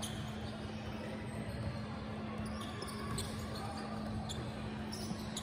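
Basketball bouncing on the court during play, with scattered sharp ticks over a steady low hum.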